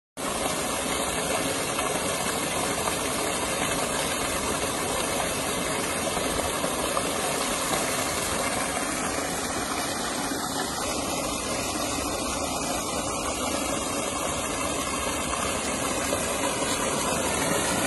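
Steady rush of water gushing from a pipe and splashing into a brick water tank.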